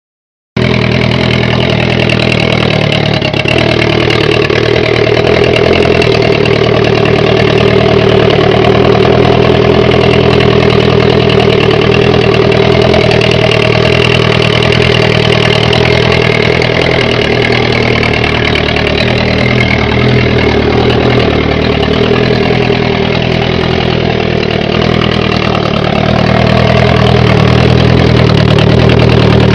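Turbocharged Kawasaki motorcycle engine idling steadily, starting about half a second in and getting a little louder near the end.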